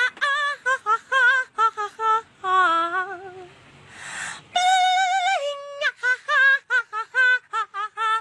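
High-pitched singing voice, mostly quick short syllables with two longer held notes, one about two and a half seconds in and one about five seconds in. A breathy hiss comes between them, about four seconds in.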